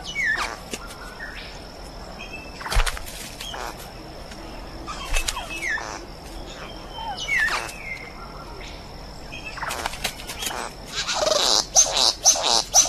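Male satin bowerbird calling in its courtship display: scattered clicks and short falling chirps, then a rapid buzzing, rattling churr near the end, the loudest part.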